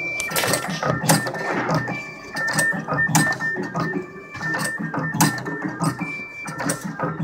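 Automatic cable stripping and cutting machine running: motor-driven rollers feeding cable and the blade knocking sharply now and then as it cuts. Music plays over it.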